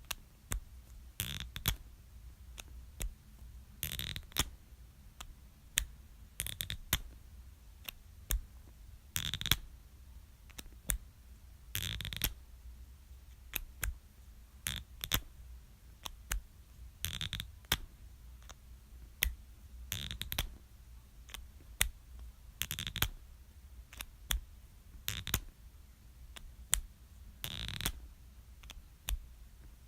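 Marker cap pulled off again and again: a short scrape-pop every two to three seconds, with sharp clicks in between.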